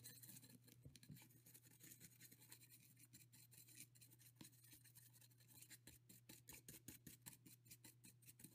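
Faint, quick scratching of a small brush scrubbing the freshly tinned solder pads of a quadcopter power distribution board with alcohol, over a low steady hum.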